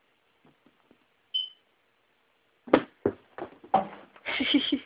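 A few sharp knocks, then a louder clatter near the end, as a small dog rummages among its toys; a brief high tone sounds about a second in.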